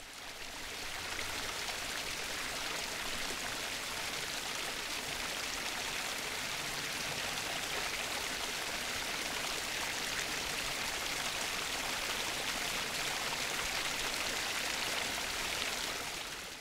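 Stream water flowing, a steady rushing sound that fades in over the first couple of seconds and fades out near the end.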